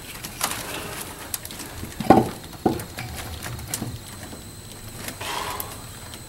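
A few separate knocks and clicks, the loudest about two seconds in, with a short scrape after five seconds. This is the lower intake manifold of a Vortec 5.7 small-block being set down and shifted into line on the cylinder heads.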